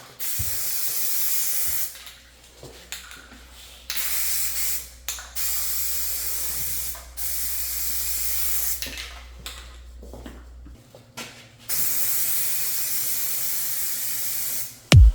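Pressurised air or spray hissing in several bursts of one to three seconds each, stopping and starting, with a low steady hum under the first two-thirds.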